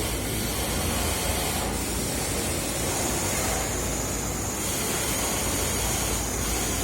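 Two-needle chainstitch industrial sewing machine running steadily at speed, stitching thin T-shirt fabric: a dense, even whir over a low hum, with a faint high whine joining about three seconds in.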